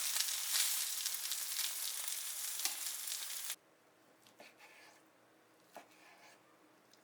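Food sizzling in a hot pan while it is stirred, with short scraping strokes through the hiss. The sizzle cuts off suddenly about halfway through, leaving only a few faint clicks.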